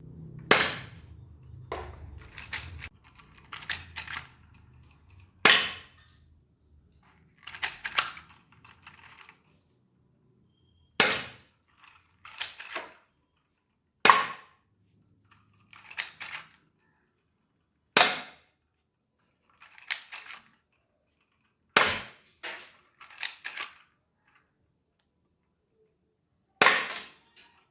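Plastic toy air pistol firing: a sharp snapping shot about every four seconds, seven in all, with softer clicks and rattles between the shots.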